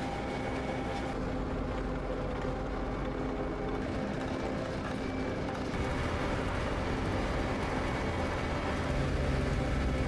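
Diesel engines of road-paving machines, an asphalt paver and road rollers, running steadily with a low rumble and a hum. The sound grows a little louder about six seconds in.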